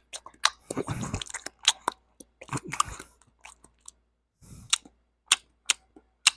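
Geophagus Tapajos eartheater cichlids munching on earthworms: a run of sharp irregular clicks, several a second, with a few short crunching bursts in between.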